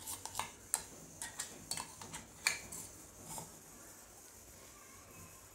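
A spoon clinking and scraping against a ceramic bowl while spreading thick garlic chutney: light, irregular clicks that stop a little past halfway.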